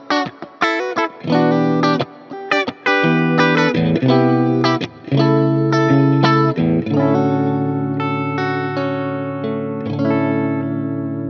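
PRS SE Swamp Ash Special electric guitar playing short, choppy chord stabs, then a last chord about seven seconds in that is left to ring and slowly fade.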